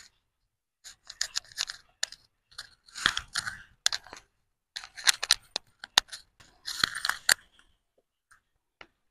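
Knife cutting a tomato held in the hand, with the pieces dropped into a stainless-steel mixer jar: short, irregular cutting sounds and clicks, with a sharper tap about six seconds in.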